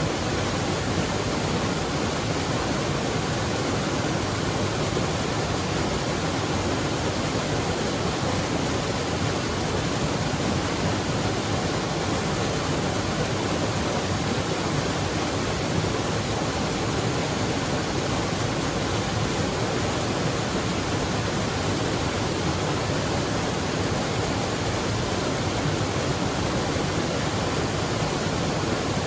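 Waterfall rushing, a steady, unbroken noise of falling water.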